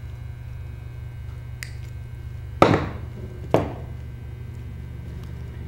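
Two sharp clacks about a second apart as a wire spool and cutters are handled on a wooden worktable while wrapping a wreath, over a steady low hum.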